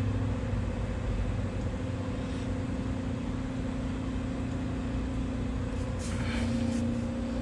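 A steady mechanical hum with a constant low tone, from the car with its systems powered up.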